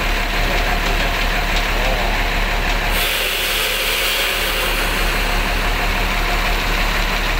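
Mercedes-Benz intercity bus's diesel engine idling steadily, with a steady high hiss setting in suddenly about three seconds in.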